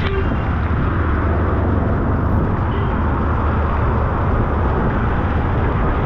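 Heavy rain pouring steadily on a city street, an even hiss with a deep low rumble underneath.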